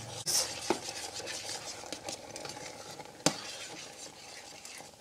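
A metal spoon stirring cornstarch thickening into peas in a stainless steel saucepan, with a few sharp clinks of the spoon against the pan, the loudest about three seconds in. A faint steady sizzle from the stovetop runs underneath.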